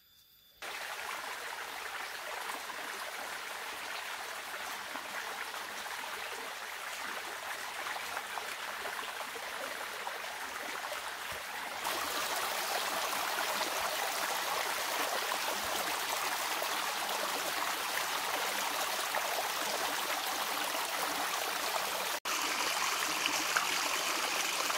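Small rocky stream running and trickling over stones, a steady rush of water that gets louder about halfway through.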